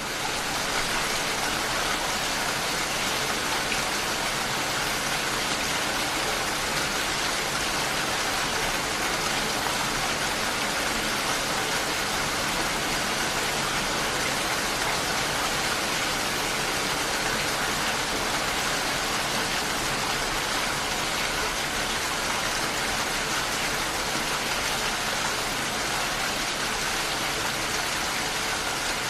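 Steady heavy rain, a dense even hiss of countless drops, swelling up out of silence right at the start and then holding level.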